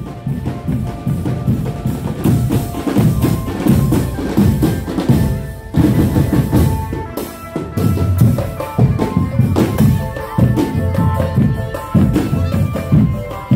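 Loud drum band music: pounding drums and bass drum keeping a steady beat under a melody line.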